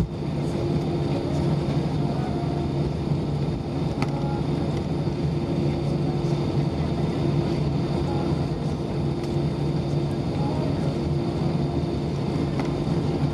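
Steady cabin hum of an Airbus A320 taxiing, its IAE V2500 engines running at low power, heard from inside the cabin beside the wing. A single sharp click sounds about four seconds in.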